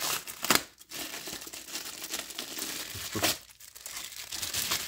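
Thin plastic wrapping crinkling as it is pulled off a small clear plastic tarantula enclosure by hand, in irregular rustles with a sharp crackle about half a second in.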